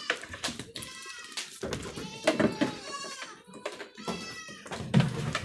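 Goats bleating, several calls one after another, each rising and falling in pitch, some of them overlapping.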